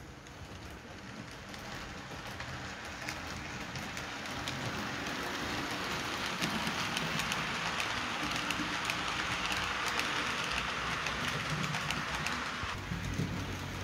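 Model train running on the layout track, a steam locomotive model of class 39 pulling passenger coaches: a steady rolling hiss of wheels on rail with many small clicks. It grows louder as the coaches pass close by, then eases off near the end.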